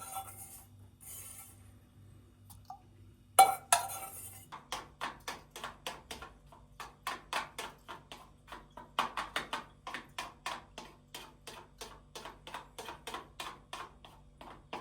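Kitchen utensil clinking and scraping against a dish or pot, with one sharp clank about three and a half seconds in, then a quick, steady run of clinks about four a second.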